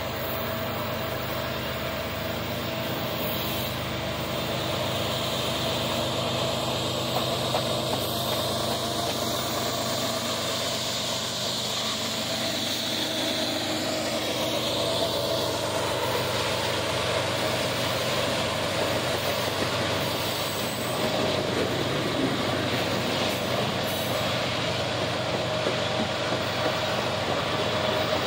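Norfolk Southern diesel locomotives running past at close range, with a steady engine drone whose higher tones drop in pitch as the units go by about midway. They are followed by empty coal hopper cars rolling by on the rails.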